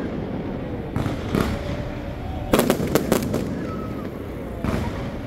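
Aerial fireworks shells bursting overhead: a string of sharp bangs at uneven spacing, with a quick cluster of several in the middle and one more near the end.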